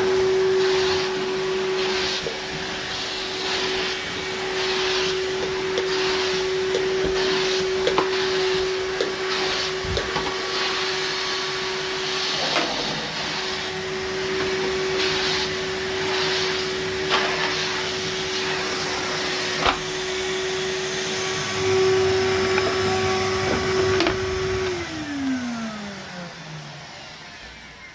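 2005 Numatic Henry HVR200-22 vacuum cleaner running with a steady motor whine and a swishing hiss that surges about once a second as it is worked back and forth. Near the end it is switched off and the whine falls in pitch as the motor spins down.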